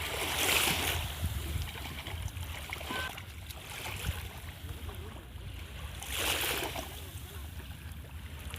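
Sea waves washing onto the beach, swelling twice, near the start and about six seconds in, over a steady low wind rumble on the microphone.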